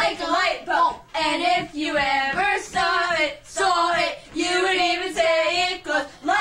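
Two children singing a song together without instruments, in short phrases of about a second with brief breaks between them.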